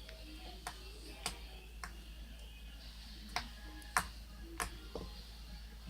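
Sticky slime being handled and stretched, giving sharp little clicks and pops at uneven intervals, about one or two a second.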